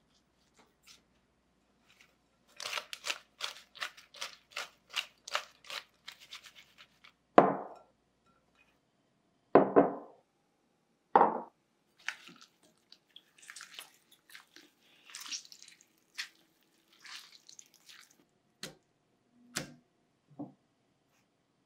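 Salted cucumber slices tossed in a glass bowl, a quick run of short rattling strokes about three or four a second. Then three heavy knocks. Softer wet squelches and drips follow as the slices are squeezed by hand to press out their juice.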